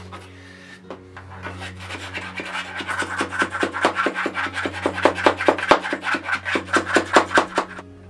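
Rapid gritty scraping strokes of a wooden stick working damp silicon carbide mould mix, about five a second, growing louder, then stopping just before the end.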